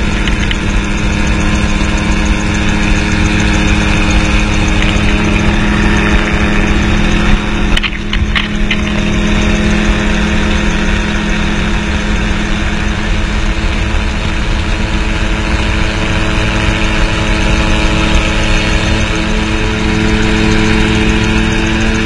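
Gyroplane engine and pusher propeller running steadily in flight, a constant drone mixed with heavy wind rush over the open cockpit. About eight seconds in the sound briefly drops with a few sharp ticks.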